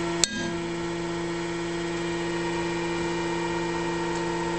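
A single sharp crack about a quarter second in as the TIG-welded 4130 steel tube gives way under tension, at about 6,740 lb. It sounds over the steady hum of the tensile testing machine's motor.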